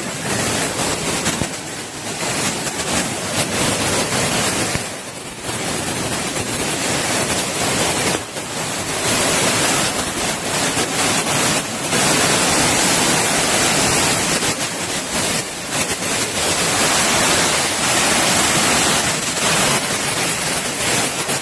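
Waterfall's rushing water, a loud steady roar of noise close to the microphone, dipping briefly a few times.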